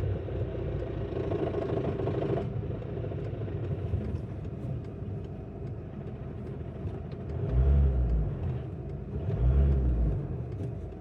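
VW Golf Mk5 2.0 TDI diesel running with a rattle, which the owner suspects comes from the gearbox. The rattle stops about two and a half seconds in, and two louder low rumbles follow later.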